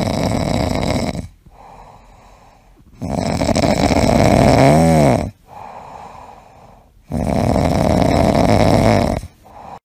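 Sleeping cat snoring: three long snores a few seconds apart, with quieter breaths between them and a brief squeaky note that rises and falls near the end of the second snore.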